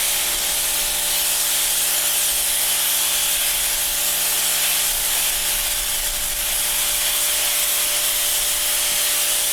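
Sprayer hissing steadily as it sprays form-release agent onto a concrete form.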